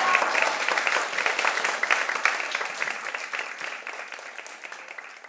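Small audience applauding: dense, quick clapping that thins out and fades away toward the end.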